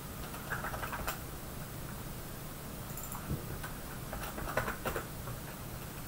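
Computer keyboard typing: a few short clusters of light keystrokes, over a faint steady low hum.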